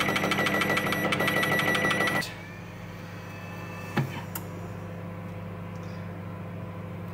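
Microwave oven running: a steady electrical hum with a buzz, which cuts off sharply about two seconds in. A faint low hum follows, with a single sharp click about four seconds in.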